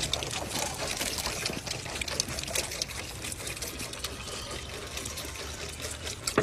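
Several goat kids suckling milk from a row of feeder nipples on a trough: a steady, dense run of wet sucking and slurping clicks.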